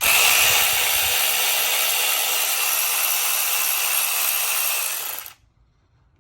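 Enegitech 12-volt cordless ratchet wrench running unloaded for about five seconds, its motor and gearing making a steady whirr that sounds a little rough, then stopping.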